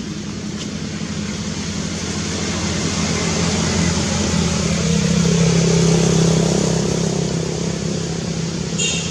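A motor vehicle drives past, its engine hum swelling to a peak about six seconds in and then fading away. A brief high squeak comes near the end.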